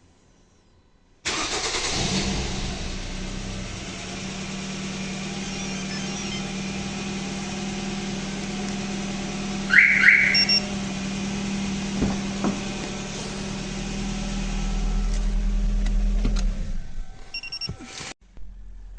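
Car engine running steadily, cutting in suddenly about a second in and dying away near the end. About halfway through there is a short rising chirp, followed by brief high beeps.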